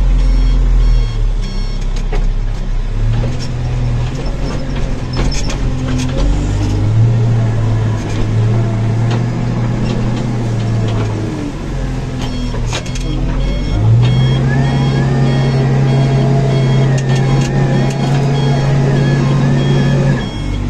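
Diesel engine of a JCB backhoe loader heard from inside the cab, running loud and revving up several times as the loader works. A reversing alarm beeps steadily near the start and again through the second half.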